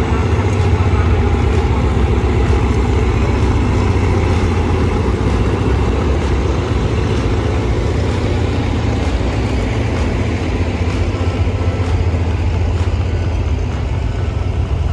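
Diesel railcar's engine idling at the platform: a steady low drone.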